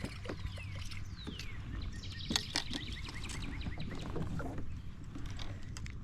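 Small clicks and knocks of fishing gear being handled aboard a kayak, with birds calling.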